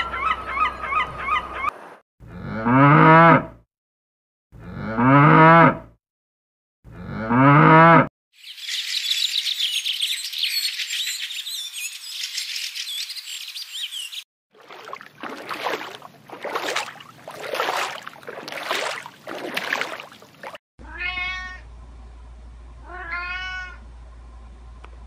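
A run of animal calls: Canada geese honking briefly, then three loud drawn-out moos, a few seconds of budgerigar chirping and warbling, a harsh pulsing stretch, and near the end a kitten's high meows.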